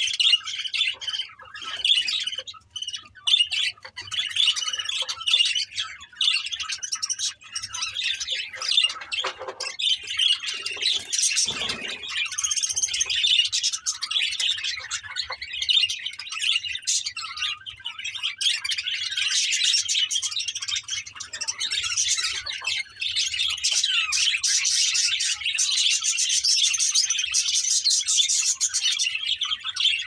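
A flock of budgerigars chattering nonstop, a dense mix of high warbles, chirps and squawks.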